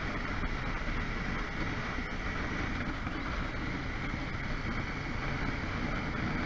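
Steady rush of wind and road noise from a moving motorcycle, with the engine running underneath at a constant speed.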